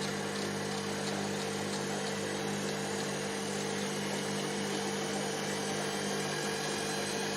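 Steady mechanical hum of a running motor: a few fixed low tones over an even whooshing noise, unchanging throughout.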